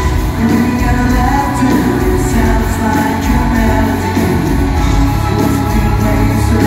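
Rock band playing live: a male singer sings over electric bass and drums, in a loud, dense, continuous mix.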